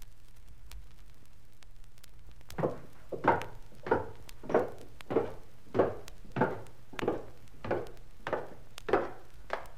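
Footsteps on stairs from a sound-effects record: about a dozen evenly paced steps, a little under two a second, beginning a couple of seconds in. Faint record hiss and surface clicks lie underneath.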